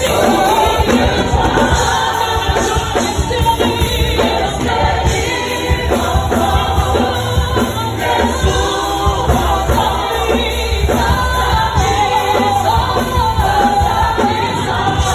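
A congregation singing a French-language gospel worship song together with a live band of keyboard, guitar and drums.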